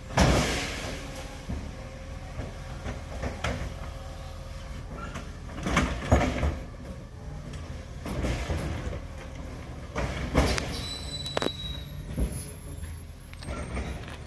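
Garbage truck running with a steady low rumble, and six short loud noises over it, the loudest at the very start and about six seconds in.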